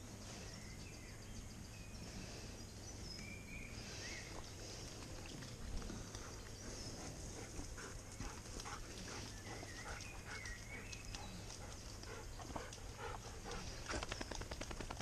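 Faint splashing and sloshing of a dog moving about in a shallow muddy stream, as irregular short strokes. A few bird chirps are heard in the background.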